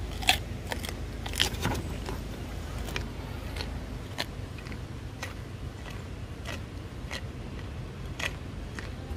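A deer crunching carrot as it chews: irregular sharp crunches, several close together in the first two seconds and then roughly one a second, over a steady low rumble.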